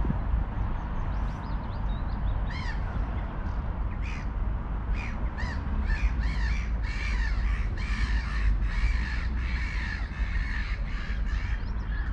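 A bird calling in short, repeated calls: a few scattered ones from about two seconds in, then a steady run of about two a second. Under it, a steady low rumble of wind on the microphone.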